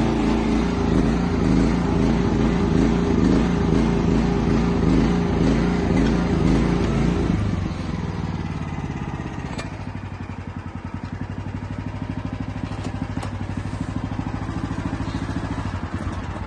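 Small engine of an ONJ MB1500 mini excavator running at high speed, then dropping back to a slower, quieter idle about seven seconds in.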